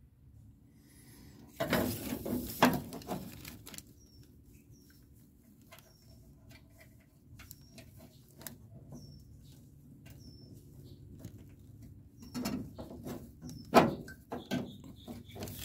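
A metal headliner tack strip being handled and fitted by hand into a car's rear-window opening: a burst of rustling and clicking about two seconds in, sparse light clicks, then a few sharper clicks near the end as its retaining pins are pushed in.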